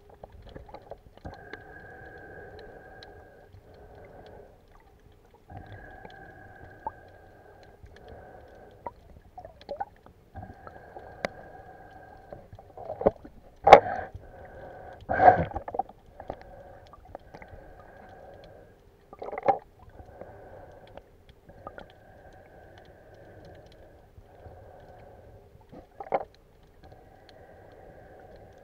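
Muffled underwater noise heard through a camera's waterproof housing, coming and going in stretches of a second or two. A few sharp knocks cut through it, the loudest two close together about halfway through.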